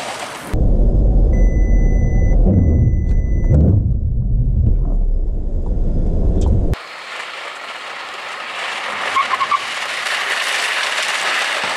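Volkswagen T-Cross driving at about 60 km/h, heard from inside the cabin as a low road and engine rumble, with two long warning beeps about a second in: the car's forward-collision warning. About seven seconds in, the sound switches abruptly to a steady outdoor hiss of wind and tyre noise.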